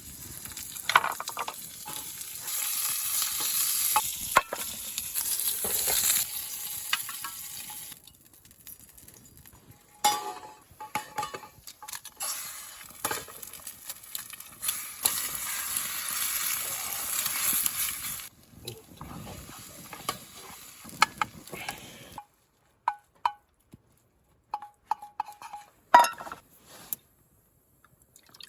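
Food frying in a pan over a small fire, with a loud sizzle in two long stretches broken by clicks of a utensil in the pan. After that come scattered sharp clicks and taps with gaps of silence between them.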